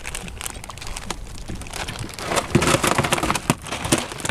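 Freshly caught Spanish mackerel thrashing on ice in a cooler: a run of rattling knocks, slaps and clatter, busiest about two to three and a half seconds in.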